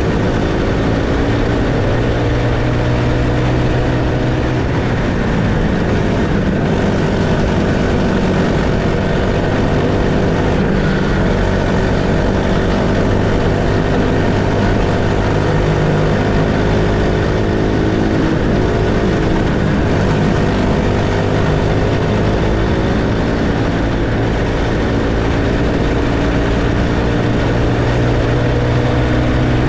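Honda GXH50 50cc single-cylinder four-stroke kart engine running hard, heard on board the kart. Its pitch dips and rises with speed through the corners and climbs near the end as the kart accelerates down the straight.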